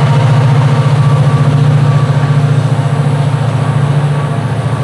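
Diesel locomotive of a commuter train running, a loud, steady low hum.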